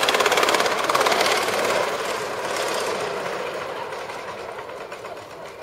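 Ride-on miniature live-steam locomotive running past with a rapid, even beat, loudest in the first couple of seconds and fading as it moves away.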